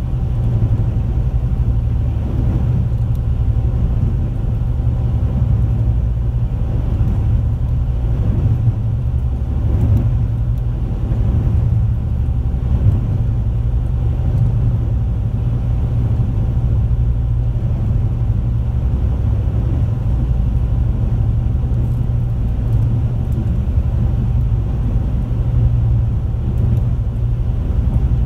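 High-speed passenger boat underway, its engines running steadily, heard from inside the cabin as a constant low rumble with a faint steady hum above it.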